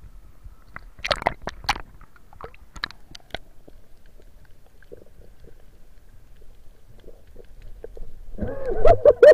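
Muffled underwater sound from a diver's camera. A splash and crackle as it goes under about a second in, then faint scattered ticks over the reef. Near the end comes a rapid run of gurgling air-bubble pops, about five a second, which grows loud.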